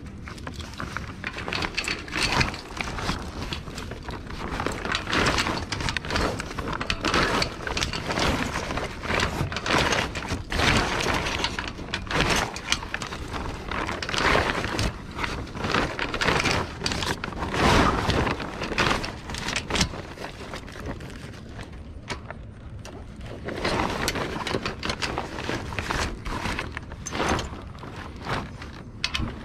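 Stiff sailcloth rustling and crumpling as the sail is handled at the mast, with rope and sail fittings scraping and knocking against it, coming and going irregularly.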